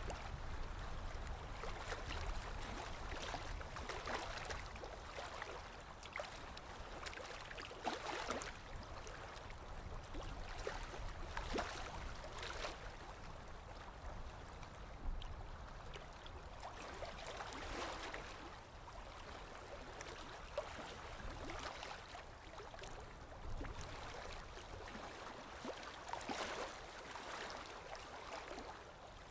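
Running water with many small splashes and drips, swelling a little every few seconds.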